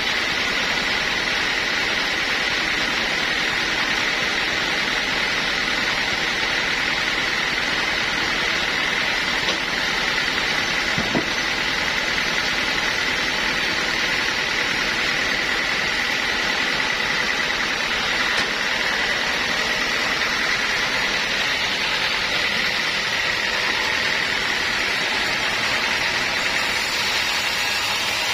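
Sawmill machinery running steadily: a constant rushing noise with a steady high whine, and one brief click partway through.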